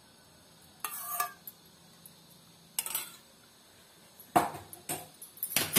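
Steel bowl and spoon clinking and scraping against a nonstick pan while melted ghee is poured in: about four short bursts of metallic clinks and scrapes, a few ringing briefly, with quiet between.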